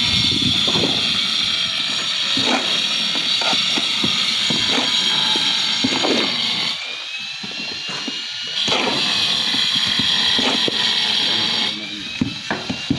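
Steel shovels scraping across a concrete slab as sand-cement mortar is mixed by hand, roughly one scrape a second. A steady high-pitched machine whine runs behind it, dropping away twice and rising back in pitch.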